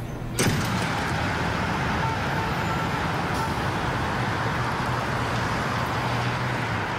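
Road traffic on a busy multi-lane city street: a steady rush of passing cars with a low engine drone. It starts abruptly about half a second in.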